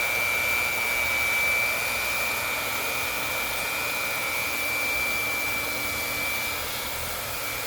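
Hot-air vinyl welding machine running, its heater blower giving a steady rushing hiss with a constant high whine as it welds along the overlapped seam.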